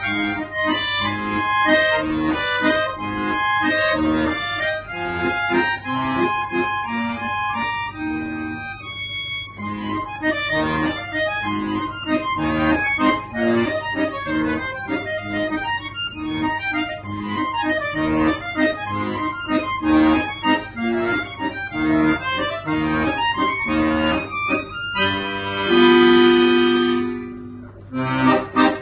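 Accordion solo: fast runs of notes over bass, with a loud long-held chord about 25 seconds in before the quick passage resumes.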